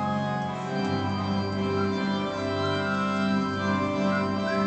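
Organ music: slow, sustained chords held steady, with a change of chord about a second in.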